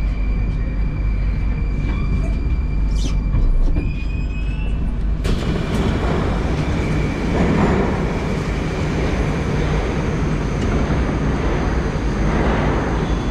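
Metro train (81-760/761 'Oka') braking to a stop in a station: a steady electric whine over a low rumble, with a few short rising tones as it comes to rest. About five seconds in, the doors open suddenly and the louder noise of the busy platform fills the car.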